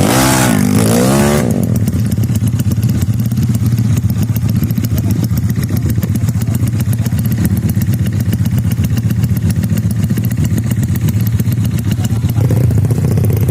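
Racing-tuned Yamaha Mio scooter's single-cylinder engine revved once, its pitch dipping and then climbing, then idling with a fast, steady putter that picks up slightly near the end.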